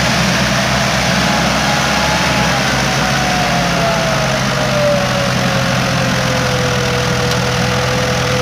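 Massey Ferguson 385 tractor's diesel engine running steadily under a heavy load while pulling a loaded trolley, with a thin whine that slowly falls in pitch.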